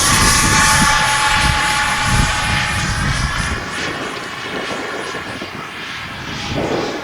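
Electric ducted fan of an RC model jet whining as it flies past, loudest at the start and fading away over the next few seconds. Wind rumbles on the microphone at first.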